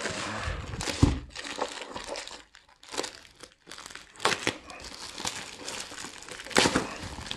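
Grey plastic courier mailer bag crinkling and tearing as it is pulled off a cardboard box, in irregular bursts with a few sharper rips, one about a second in, one around four seconds and one near the end.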